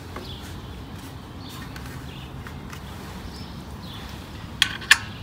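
Two sharp clicks about a third of a second apart near the end, from hands and tools working on a motorcycle radiator guard as its mounting screws are fitted and tightened, over faint steady background noise.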